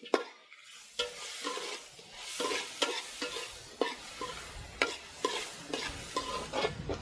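Metal spatula scraping and knocking against a wide metal pan about twice a second, stirring onions and tomatoes, over a steady frying sizzle.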